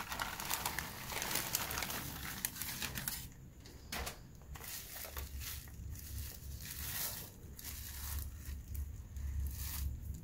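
Plastic courier mailer and bubble wrap crinkling as hands pull a bubble-wrapped package out of the bag and handle it. The rustling is dense for about the first three seconds, then comes in shorter bursts of crinkling.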